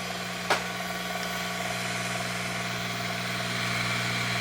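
Ya Xun 902+ hot-air rework station running with airflow at maximum and no nozzle fitted: a steady hum from the vibration of its air unit, over a hiss of air. A single click about half a second in.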